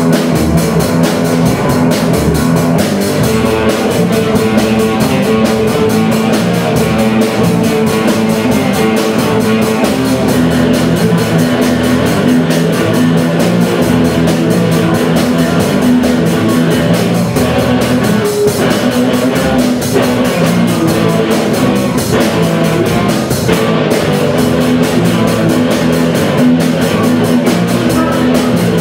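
Live rock band playing through amplifiers: a drum kit keeps a steady beat under guitars.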